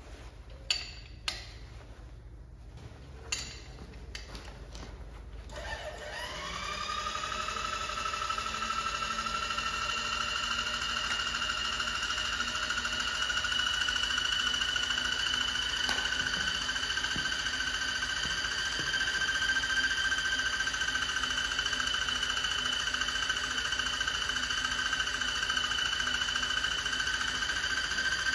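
A few metallic clinks, then, about six seconds in, the electric drive motor of a home-made line boring machine starts. Its whine rises in pitch for a couple of seconds and then runs steadily.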